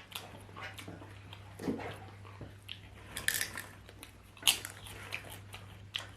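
Eating sounds: chewing with scattered light clicks and clinks of utensils against dishes, the loudest a sharp click about four and a half seconds in.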